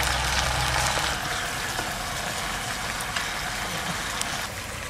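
Tiny river fish frying in hot oil in a pot over a wood fire, sizzling steadily while being stirred with a spatula, with a few light ticks from the spatula. A low rumble underlies the first second.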